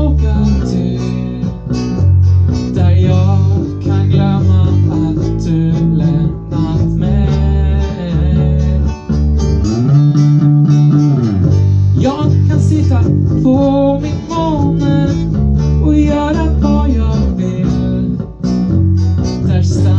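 Acoustic and electric guitars playing together: strummed chords with a deep bass line under them and a picked melody line on top.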